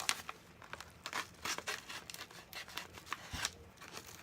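A shipping package being torn open by hand, its wrapping crinkling and tearing in short, irregular rustles.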